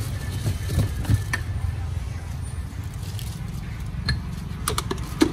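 Steady low rumble of background noise, with several sharp clinks near the end as a metal spoon and glass seasoning jars are handled.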